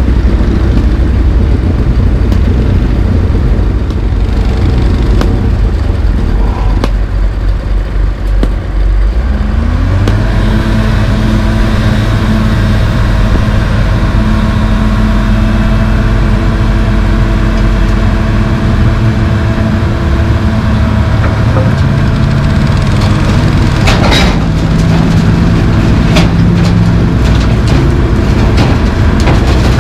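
Heavy diesel engines running close by: a Komatsu PC220LC track excavator and a single-axle dump truck backing up to it. About a third of the way in, an engine note steps up in pitch and holds steady, and a few short sharp noises cut in near the end.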